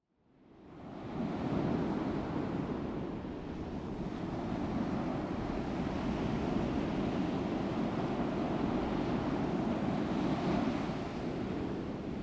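Steady rush of ocean surf, fading in from silence over about the first second, then holding with slight slow swells.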